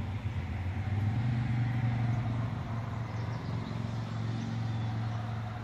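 Steady low mechanical hum over a faint, even background noise.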